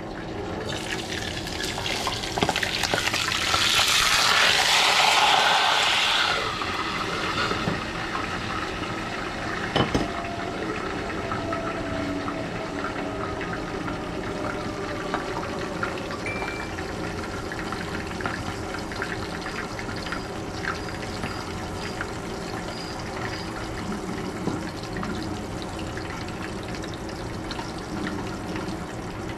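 Milkfish (bangus) frying in oil in a covered pan: a steady sizzle with scattered crackles. A louder hissing rush rises about two seconds in and dies down by about six seconds, and there is a single sharp click near ten seconds.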